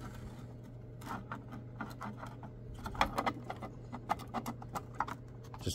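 Hard plastic clicking and scraping as a 3D-printed insert tray is worked down into a plastic sluice box. It is a run of small irregular knocks, the loudest about three seconds in, over a low steady hum.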